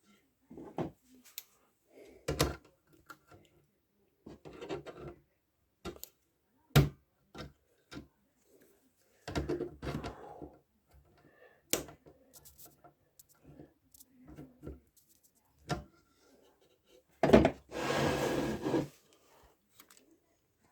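Irregular knocks, clicks and rubbing of objects being handled, with a sharper knock about 17 seconds in followed by a longer scraping noise.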